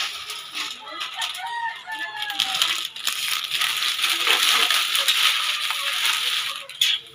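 Noodles and vegetables sizzling in a wok as a metal spatula scrapes and stirs them, with a steady frying hiss that swells in the second half. A rooster crows in the background about a second in.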